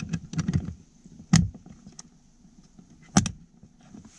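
Hard plastic clicks as a Tekonsha P3 brake controller is pushed onto its plastic mounting bracket: a sharp click about a second in, a faint tick, then a second sharp double click near the three-second mark. Light handling noise comes just before.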